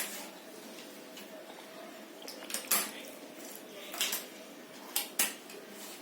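Jigsaw puzzle pieces being handled and set down on a hard surface: about five sharp clicks and taps over the second half, two close together near the end.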